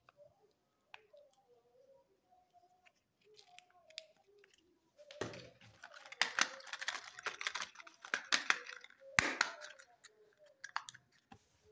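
Plastic-wrapped chocolate surprise eggs crackling and clattering as a hand rummages through a heap of them, dense and loud from about five to ten seconds in. Sparse clicks of plastic and foil follow near the end.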